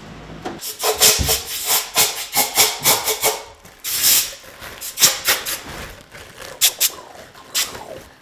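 Compressed-air blow gun fired in many short, quick hissing bursts against a bare small-block V8 engine block, with one longer blast about four seconds in.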